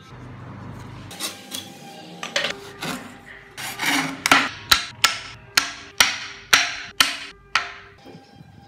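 Hand frame saw cutting through a wooden board. The strokes start soft and uneven, then about halfway through they turn into about nine loud, regular strokes at roughly two a second, which stop shortly before the end.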